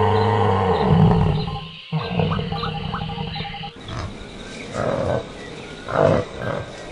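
Animal calls: a long, low call that cuts off about two seconds in, followed by a few shorter calls.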